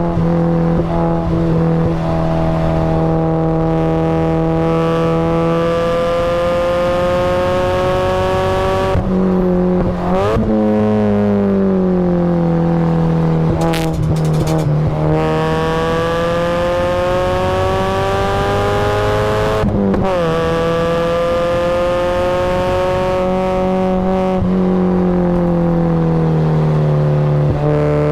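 Supercharged Mazda Miata's four-cylinder engine at race pace, pitch climbing steadily as it pulls through the revs. Several times it drops sharply on a lift or gear change, with quick throttle blips on the downshifts.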